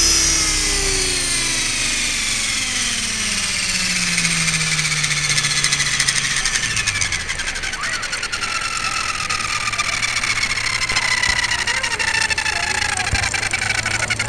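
Align T-Rex 500 electric RC helicopter's motor and rotor winding down, the whine falling steadily in pitch over several seconds. A steady low hum and rapid ticking come in over the second half.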